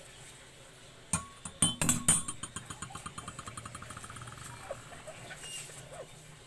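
Metal cutlery clinking against dishes while being washed by hand with a soapy sponge: a few sharp clinks about a second in, then a fast rattle that fades away over the next two seconds or so.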